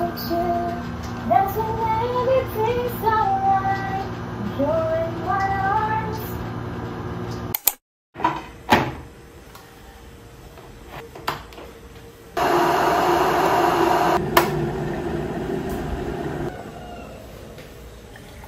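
A voice singing a short tune. Then, after a few clicks, an electric kettle runs as it heats water: a steady rushing hiss with a low hum under it that starts and stops abruptly after about four seconds.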